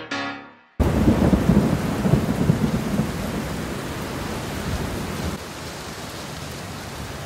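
A few music notes end, then thunder breaks suddenly about a second in over heavy rain. The rumble eases after about five seconds into a steady rain hiss.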